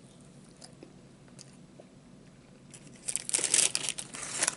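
Faint chewing of a french fry, then about three seconds in a paper fry bag crinkling loudly as a hand reaches into it.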